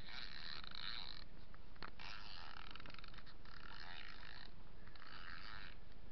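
Small plastic toy car pushed back and forth on concrete by hand, its wheels whirring in four rasping strokes of about a second each.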